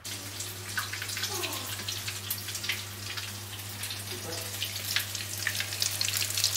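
Brik pastries frying in a pan of oil: a continuous crackling sizzle, over a low steady hum.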